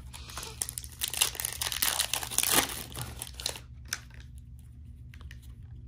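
Trading-card pack wrapper crinkling as it is torn open and the cards are pulled out, for about three and a half seconds. After that come only a few faint ticks of cards being handled.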